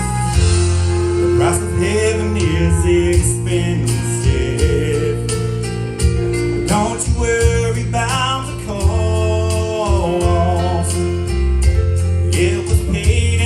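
Country-gospel music played live by a church praise band: guitars and bass carrying a gliding melody line, between sung verses.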